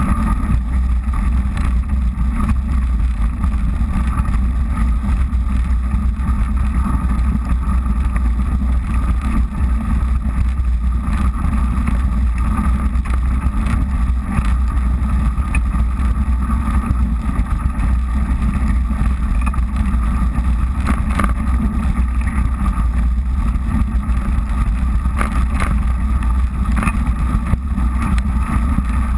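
Mountain bike riding on a snowy, slushy dirt road: a steady low rumble of wind on the camera microphone and tyre noise, with a few faint knocks from bumps along the way.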